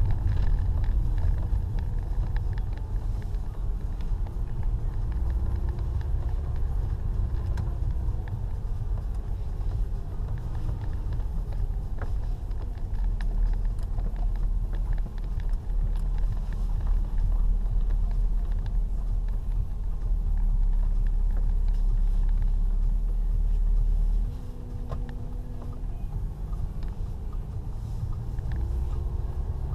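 Audi A5 Cabriolet driving, heard from inside the cabin: a steady low rumble of engine and road noise with a faint engine note. Near the end the rumble drops in loudness and the engine note steps higher.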